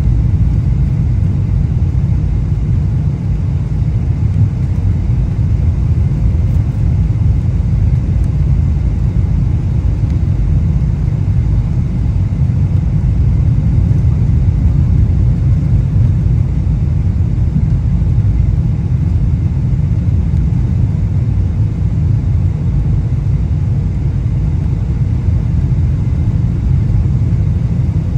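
Steady low rumble of an airliner's engines and airflow heard inside the cabin on final approach, even throughout with no distinct knocks or changes.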